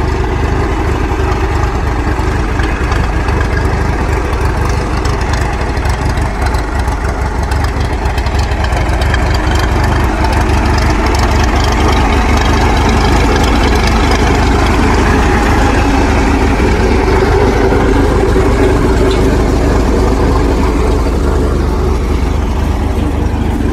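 1936 McCormick-Deering 10-20 tractor's four-cylinder engine idling steadily.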